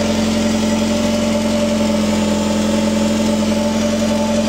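Mercedes-Benz W210's engine idling steadily, a constant even hum from the running engine and exhaust. The newly fitted Bosch fuel pump cannot be heard over it: the new pump runs quietly, where the old one whined.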